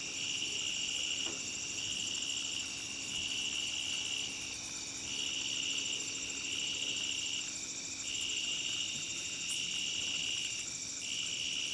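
Chorus of crickets and other insects chirping steadily, one high trill swelling and dropping back about every second or two.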